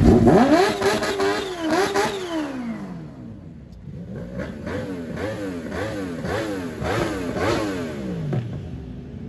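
Superbike engines, a Kawasaki Ninja H2 among them, revved while standing still: a long rev held high, then a run of quick throttle blips, each rising and falling in pitch, about two a second.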